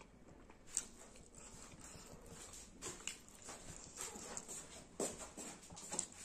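Faint chewing and lip-smacking from eating chewy skin curry by hand, with a handful of short wet clicks spread through and a bite near the end.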